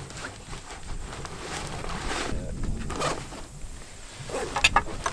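A hunting day pack being handled and adjusted: fabric rustling and straps sliding, with a few sharp clicks near the end.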